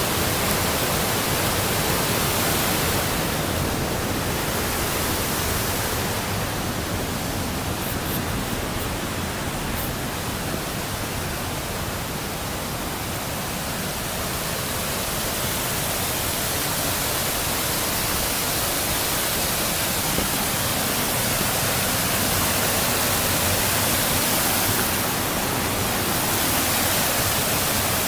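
Waterfall and river rapids rushing: a steady, even wash of falling water, easing slightly in the middle and building again.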